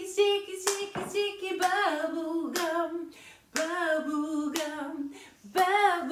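A woman's voice sings the melody of a children's song with no clear words, while hands clap a steady beat at about two claps a second.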